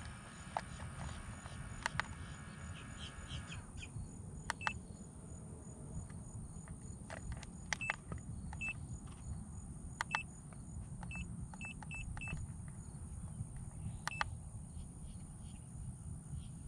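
FPV goggles giving short high electronic beeps as their buttons are pressed, about eight beeps with clicks scattered through, over a steady low background hum. A faint steady tone stops about three and a half seconds in.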